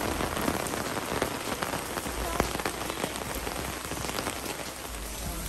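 Steady rain falling, with many close drops tapping sharply on umbrellas overhead.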